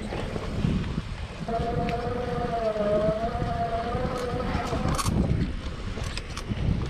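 Samebike LO26 electric folding mountain bike ridden over a sandy trail: a steady rumble of tyres and frame, with short rattles and clicks, and wind on the microphone. About a second and a half in, a slightly wavering whine starts and runs for about three and a half seconds.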